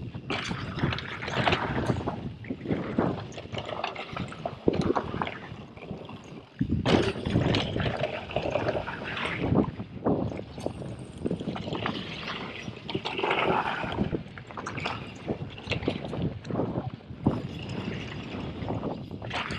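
Orbea Rallon full-suspension mountain bike riding down a rocky, gravelly downhill trail: tyres crunching over loose stones, with an uneven clatter of knocks and rattles from the bike over rough ground.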